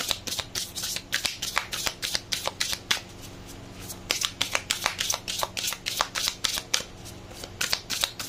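A deck of large oracle cards shuffled by hand, passed from hand to hand, the cards slapping and riffling together in quick runs of clicks. It stops for about a second a little after three seconds in, and briefly again about seven seconds in.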